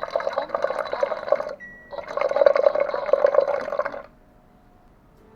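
Water pouring into a container in two bursts, the first about a second and a half, the second about two seconds, each starting right after a short high electronic beep.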